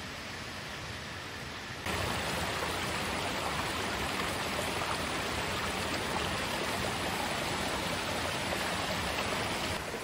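Mountain waterfall and stream rushing over boulders into a rocky pool, a steady roar of water that grows louder about two seconds in and eases off again just before the end.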